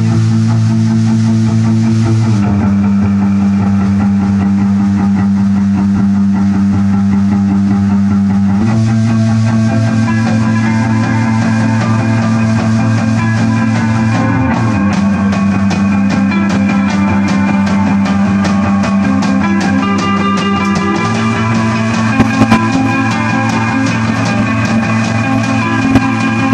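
Live rock band playing instrumentally: electric guitar and bass guitar holding long low notes that shift every few seconds, over a drum kit whose cymbal strokes grow busier from about ten seconds in.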